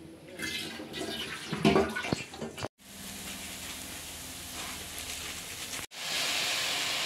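Water poured from a plastic jug into a steel bowl in a kitchen sink, splashing and sloshing. After a cut comes a quieter steady hum, and after a second cut a steady hiss from the kadai of potato and cauliflower.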